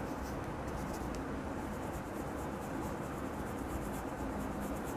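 Soft, scratchy brushing of a makeup brush on powder blush: the bristles pick up powder from the compact, then sweep over the cheek.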